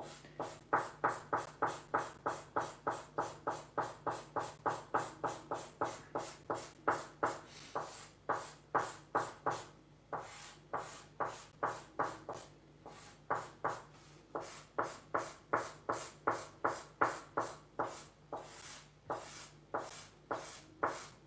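Black marker scrubbed back and forth across paper to fill in a large solid black area: a quick rhythmic scratching of about three strokes a second, with a few brief pauses.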